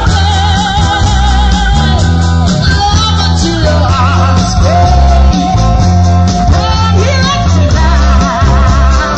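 Live rock band heard through PA speakers: a singer holding notes with vibrato over guitars, with a heavy booming bass low end.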